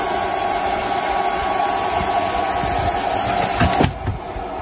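Steady blowing hiss and hum of the iKier K1 Pro Max laser's built-in air-assist pump during a cut. The sound cuts off sharply a little before the end, leaving a lower hum that begins to fade.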